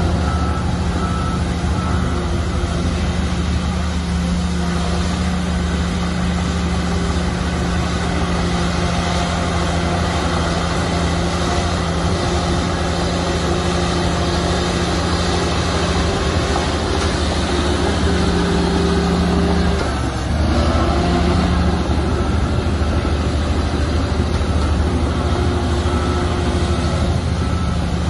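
Shantui bulldozer's diesel engine running steadily, with a brief dip in engine speed about twenty seconds in before it picks back up.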